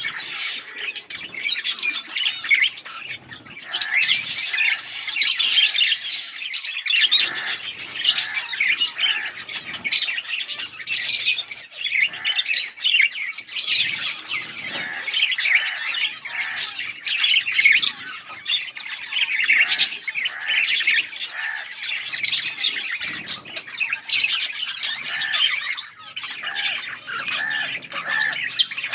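Several budgerigars chirping and chattering without pause, a dense stream of quick warbling chirps mixed with harsher squawks.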